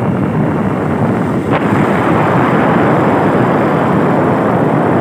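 Wind rushing over the microphone and motorcycle engines running on a moving motorcycle, a steady loud noise with a brief tick about a second and a half in.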